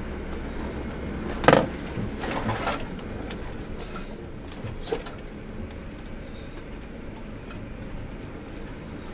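Car driving over rough paddock ground, heard from inside the cabin: a steady low engine and road rumble, with a sharp knock about a second and a half in and lighter rattles soon after and again near the five-second mark.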